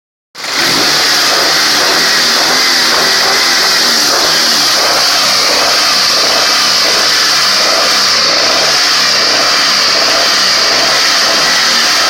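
Honda Accord F22B 2.2-litre four-cylinder engine running with the knock and rattle it is recorded for, starting abruptly about half a second in.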